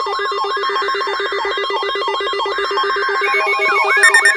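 Several electronic emergency-alert tones sounding over each other: a fast pulsing low beep and a warbling sweep that repeats about three times a second. Further high beeping tones join about three seconds in and again near the end.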